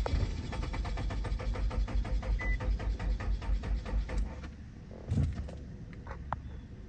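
A 2017 Nissan Altima's 2.5-litre four-cylinder engine cranking on the starter for about four seconds with an even pulsing rhythm and never catching, then the cranking stops: a crank-no-start condition, which the owner suspects is a cam sensor or a fuel rail or injector problem. A single thump follows about a second later, then a few faint clicks.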